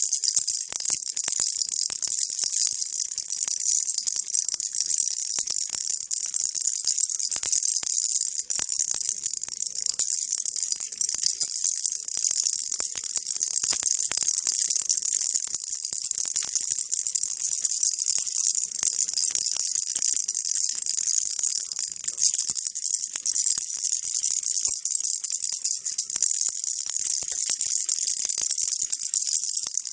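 Baby rattle shaken steadily and continuously, a dense, even, hissy rattling of small beads without pause.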